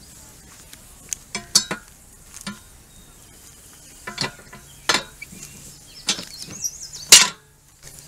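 Metal clanks from a steel fire poker knocking against a steel fire ring and its logs: several separate knocks, some ringing briefly. The loudest clank comes about seven seconds in, as the ring's hinged steel cooking grate is swung down over the fire.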